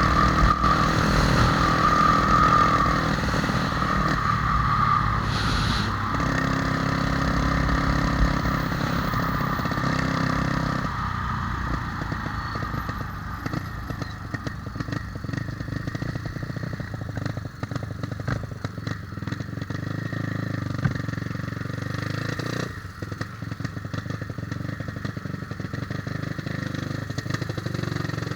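Honda Tornado motorcycle's single-cylinder four-stroke engine, enlarged to 293 cc, running on its first test. It is louder for about the first eleven seconds, then runs quieter and steadier with a light clatter.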